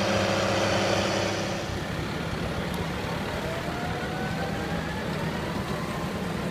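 Tractor engine running steadily. It is louder for the first couple of seconds, then drops to a quieter hum while a faint whine rises slowly in pitch.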